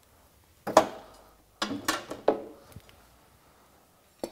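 Paintless dent repair tools being handled and set down in a tool cart: a sharp knock just under a second in, a quick cluster of clinks and knocks around two seconds, and one more near the end.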